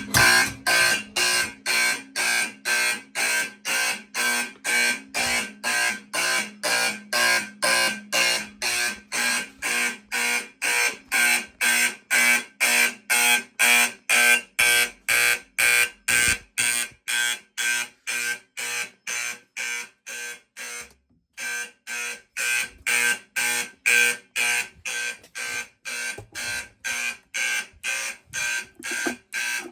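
Fire alarm horn sounding in alarm on a homemade relay-built fire alarm panel, pulsing steadily about twice a second. It breaks off briefly about two-thirds of the way through, then resumes.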